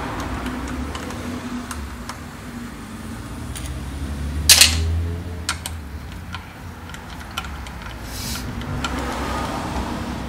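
Scattered small metallic clicks and clatter of a hand tool working the 10 mm bolts on the coil-on-plug ignition coils of a car engine, with one loud sharp clack about four and a half seconds in.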